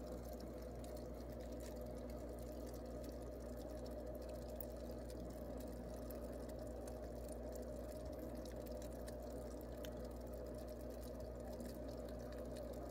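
Aquarium sponge filter bubbling steadily, air from the pump rising and breaking at the water surface in fine little pops, over a low steady hum.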